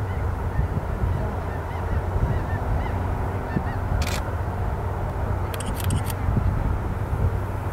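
Boeing 747-8F's four GEnx-2B turbofans running at low power as the freighter taxis on the runway: a steady low rumble with a hum over it. Faint calls sound in the first couple of seconds, and a few sharp clicks come about halfway and again a little later.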